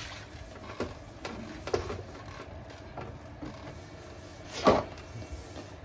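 A few sharp knocks and clatters of hard objects being handled, the loudest about three-quarters of the way through, over a faint steady background.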